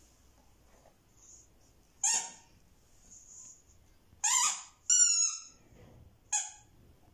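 A baby's high-pitched squeals, four short ones, the third a little longer and falling in pitch.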